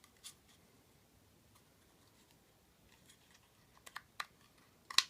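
Scattered light clicks and taps of a Magpul MOE CTR buttstock's adjustment lever being handled and lined up on the stock's pegs: one small click, then a cluster of clicks, the loudest near the end.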